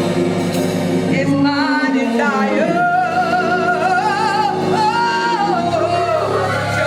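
Gospel music: a melismatic vocal line with vibrato sliding between held notes over sustained chords.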